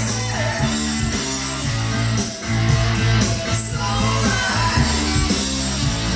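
Rock music with guitar, played through a home stereo amplifier and loudspeakers.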